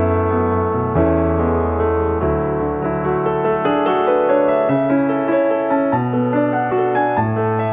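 Background piano music: a slow keyboard melody over held chords, with the bass note changing about every second.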